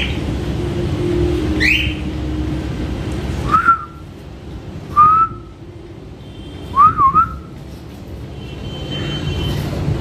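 Pet parrots calling: two short rising chirps in the first two seconds, then single whistled notes about three and a half and five seconds in and a double whistle about seven seconds in, over a steady low hum.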